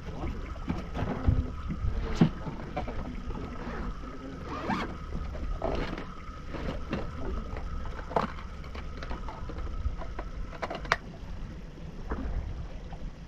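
Fishing boat under way: a steady low rumble with a faint steady whine, and scattered knocks and clicks.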